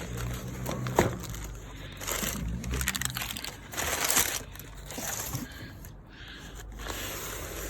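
Packaging crinkling and rustling in several short bursts as packages are handled and taken out of a shipping box, with a small click about a second in.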